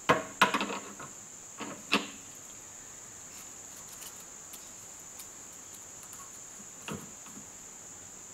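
Metal clinks and clanks as steel locking pliers are clamped onto a piston held in a bench vise: a cluster of sharp clicks in the first two seconds and another about seven seconds in, over a steady thin high-pitched whine.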